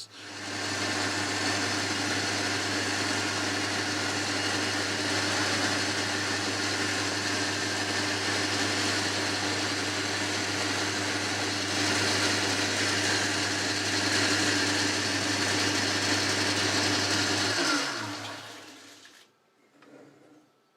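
Boxford metalworking lathe running steadily while turning a mild steel bar down in diameter. About 18 seconds in it is switched off and winds down, its hum falling in pitch until it stops.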